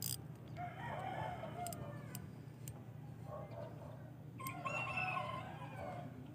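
Faint rooster crowing, twice: one crow about half a second in and another about four and a half seconds in.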